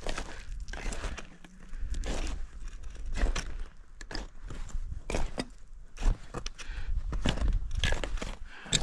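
A climber's footsteps on snow, a step about every half second to second, over a steady low rumble.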